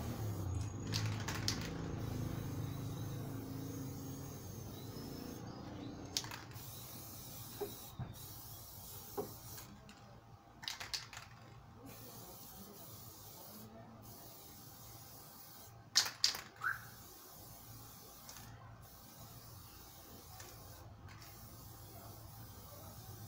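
Short hissing bursts of an aerosol spray-paint can, several times a few seconds apart, as coats of paint go onto the wooden slats.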